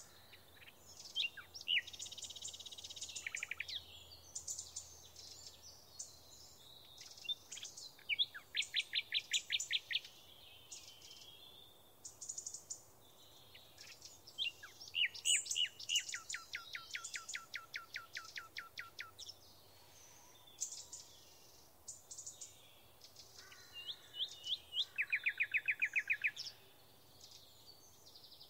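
Birds singing: a string of high chirps and whistles, with several fast rattling trills of a dozen or more notes each.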